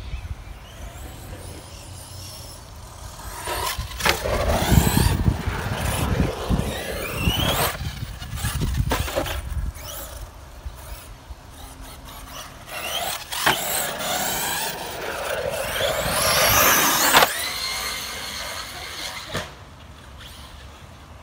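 Arrma Outcast 6S radio-controlled truck's brushless electric motor whining, rising in pitch each time it accelerates. The longest run builds for several seconds and cuts off suddenly about three-quarters of the way through. A few sharp knocks come from the truck bouncing over the ground.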